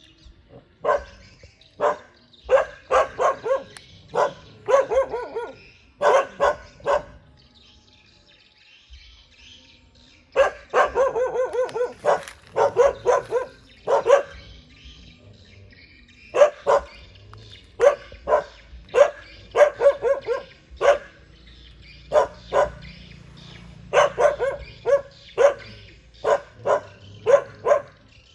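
Dogs barking repeatedly in bursts of several barks, with a pause of about two seconds a third of the way in and a fast run of barks just after it: guard barking at strangers near their house.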